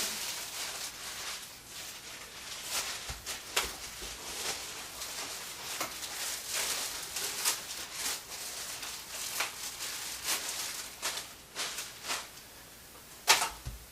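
Unpacking noises: packaging rustling and stroller parts being handled in irregular bursts, with one sharp knock near the end.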